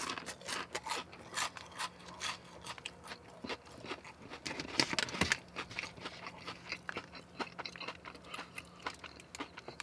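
Close-miked chewing of fried food with the mouth working: many irregular wet smacks and small crunches, busiest about halfway through.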